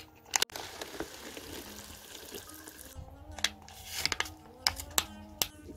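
Hot water pouring into a paper cup-noodle bowl, a steady rushing hiss that stops abruptly about three seconds in. Then seasoning packets crinkle and click as powder is shaken over the noodles, over light background music.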